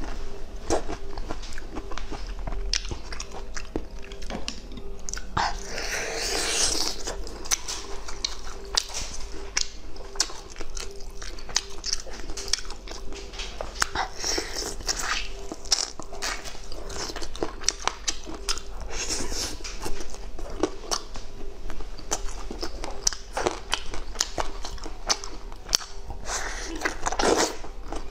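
A person eating close to the microphone: chewing, with repeated crunching bites, and a couple of longer, louder noisy mouth sounds about six seconds in and near the end.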